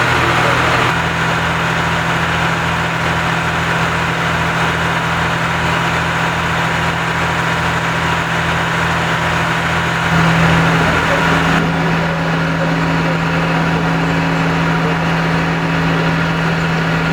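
A heavy engine idling steadily with a low, even throb. A second, higher tone joins about ten seconds in and the sound gets a little louder.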